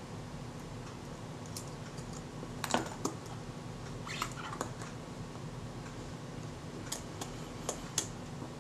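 Irregular small metallic clicks and ticks from fingers working the parts of a Kodak Retina's Synchro-Compur leaf shutter mechanism. The clicks are scattered, the loudest about a third of the way in, with a few more close together near the end.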